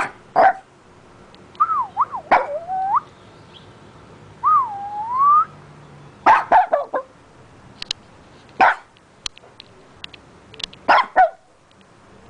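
A dog sneezing about half a dozen times, each a short sharp burst. In the first half, two long whines waver up and down in pitch between the sneezes.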